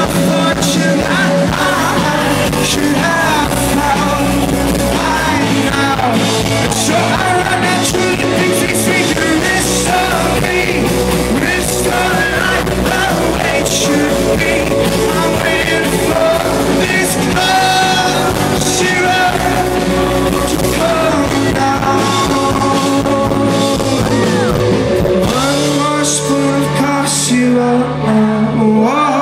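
Rock band playing live in a concert hall, heard from the audience, with a full band and singing. The music stays loud throughout, and the low chord shifts near the end.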